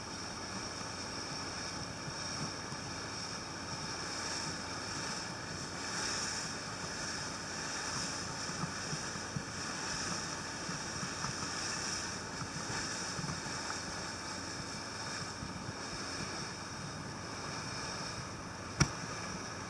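Boat under way: steady rush of wind and water past the hull, with a faint motor hum underneath. A single sharp click about a second before the end.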